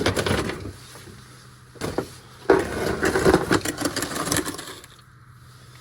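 Handling noises: rustling, scraping and sharp clicks in uneven bursts as someone moves about and picks up tools, with a faint steady low hum underneath. The noises die down for the last second or so.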